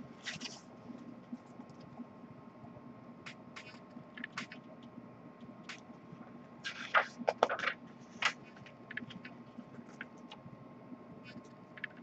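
Paper pages of a booklet being turned and handled: scattered soft rustles and scrapes, with a louder flurry of crackling paper and taps around seven to eight seconds in as the booklet is swung up close. A faint steady hum runs underneath.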